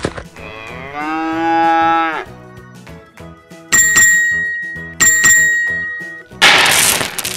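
A cow mooing once, a drawn-out call lasting about two seconds, followed by two ringing bell dings and a short noisy whoosh near the end, over children's background music.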